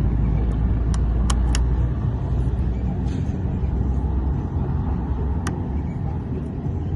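Steady low vehicle rumble, with a few sharp metallic clicks from the locksmith working a sticky car door lock: three close together about a second in and one more near the middle.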